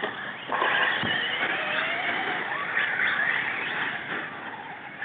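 4x4 RC short course trucks racing on a dirt track, their motors whining and rising and falling in pitch with the throttle. The sound grows louder about half a second in.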